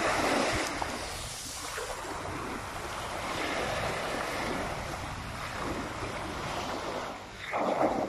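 Small waves breaking and washing up over a sandy beach, the rush of water swelling and fading in turn, with a louder surge near the end.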